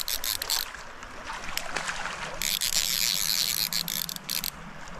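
A fly reel's click-and-pawl drag ratcheting rapidly as line runs on and off the spool while a hooked trout is played, in two spells: briefly at the start, then again for about two seconds from a little before the middle. Steady water hiss lies underneath.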